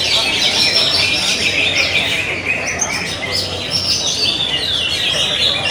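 Many caged green leafbirds (cucak ijo) singing at once in a contest: a dense, unbroken chorus of quick, overlapping, high-pitched chirps and notes that slide up and down.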